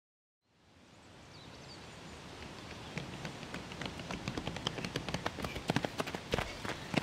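Running footsteps crunching on a gravel path, a quick patter of steps growing louder as the runners come closer, over a steady outdoor noise that fades in about half a second in.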